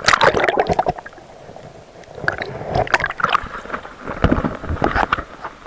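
Seawater sloshing and gurgling around a camera held at the water's surface, dipping in and out of the water, in irregular splashy surges.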